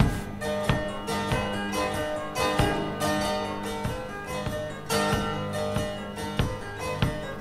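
Langeleik, the Norwegian box zither, played with a plectrum: even strums about every two-thirds of a second across the melody string and drone strings, the drones ringing steadily under a melody fingered on the frets.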